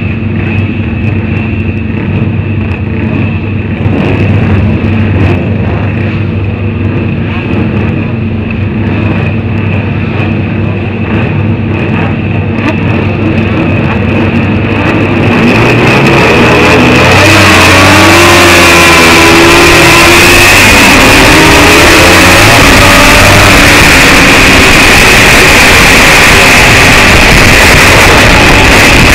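Vintage racing motorcycle engines idling on the starting grid, then, a little past halfway, accelerating hard off the start with the engine note climbing through the gears. Once under way, heavy wind rush on the bike-mounted camera swamps the sound.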